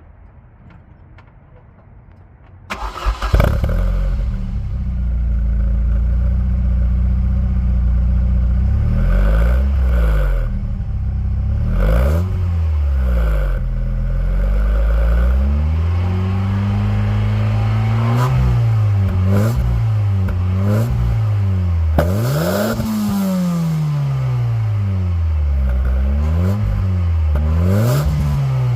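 Opel Astra F GSi's stock C20XE 2.0-litre 16-valve four-cylinder engine starting about three seconds in and idling steadily. From about eight seconds in it is revved again and again, its pitch rising and falling with each blip of the throttle.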